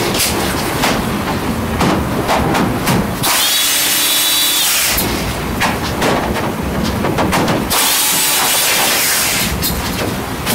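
Cordless electric screwdriver running twice, each time for about a second and a half, with a whine that rises, holds and falls as it backs screws out of a laser printer's plastic casing. Sharp clicks and clatter of the plastic side panel being handled come between the runs.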